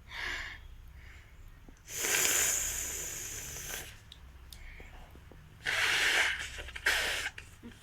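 Someone blowing their nose hard: a short blow, then a long one of about two seconds, and two shorter blows near the end.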